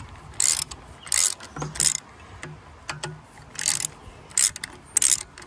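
Hand tool being worked on the engine in short ratcheting strokes, about seven quick bursts of clicking at irregular intervals.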